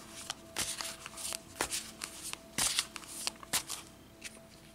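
A tarot deck being handled: a string of irregular crisp snaps and rustles of card stock as the cards are shuffled and moved.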